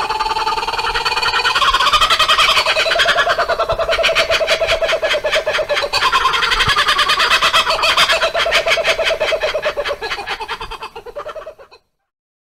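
Laughing kookaburra's laugh: a long run of rapid cackling calls that swells to a loud peak twice, then dies away and stops abruptly shortly before the end.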